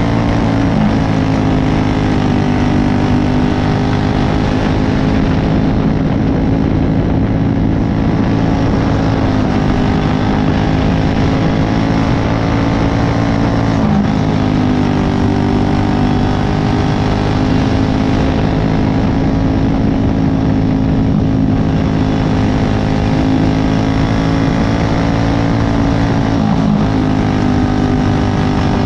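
Racing go-kart's single-cylinder engine running hard, heard from on board. Its pitch drops sharply about four times, at roughly 1, 9, 14 and 26 seconds in, then climbs again: the driver lifting off for corners and accelerating out.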